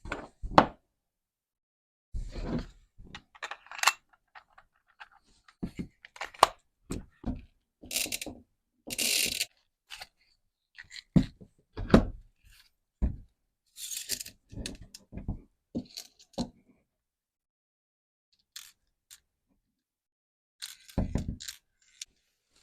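Handling noises: a series of irregular knocks, thunks and scrapes as objects are moved about and set down on a hard surface, with a longer scraping rustle about eight seconds in.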